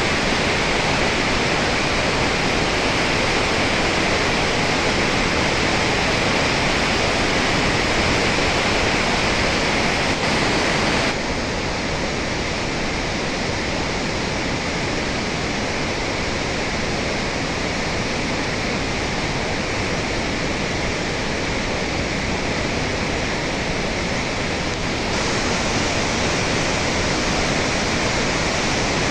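Heavy water discharging from a hydroelectric dam's spillway and outlet gates into a turbulent stilling basin: a loud, steady rushing of churning white water. It drops a little in loudness about a third of the way in and comes back up near the end.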